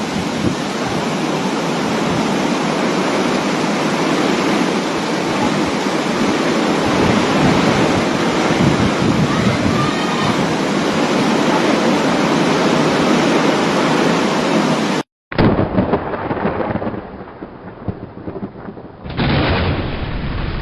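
Heavy rain pouring down in a storm: a dense, steady hiss. About fifteen seconds in it cuts to another recording of rain, which is quieter for a couple of seconds and then heavy again.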